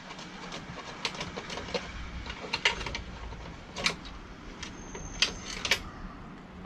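Scattered clicks and small knocks of hand work on the plastic cord fitting of a car vacuum, as it is worked loose from the cord. A brief high squeak about five seconds in.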